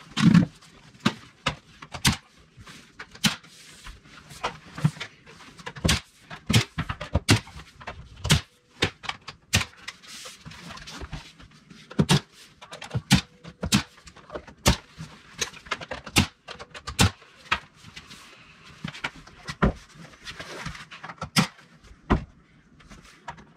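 Pneumatic finish nail gun firing again and again, sharp shots at irregular intervals of roughly one or two a second, as nails are driven through the casing of a split-jamb interior door into the frame.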